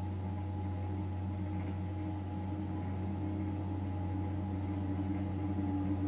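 Skid steer loader's engine running steadily, growing slowly louder as the machine approaches.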